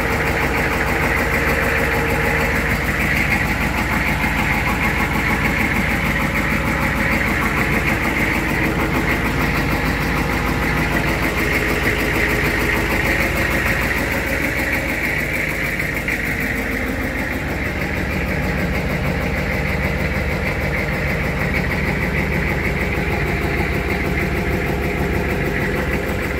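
Old dump truck's engine idling steadily, heard close to the chassis.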